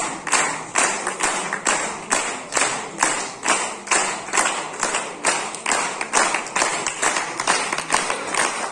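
Audience clapping together in a steady rhythm, about two to three claps a second.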